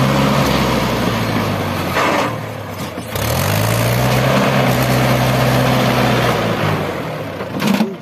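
Heavy diesel engine running at high revs, easing off about two seconds in, then revving up again a second later and holding for about three seconds before dropping back near the end.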